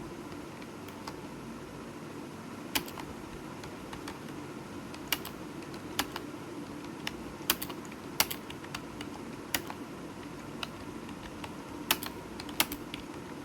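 Computer keyboard being typed on: irregular key clicks, a handful of them sharper and louder, over a steady background hiss.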